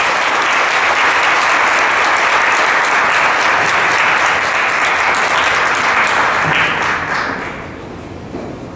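Applause from board members and audience, steady and loud, then dying away about seven to eight seconds in.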